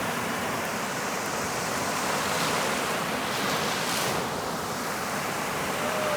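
Ocean surf: waves breaking and washing up a beach in a steady, swelling rush.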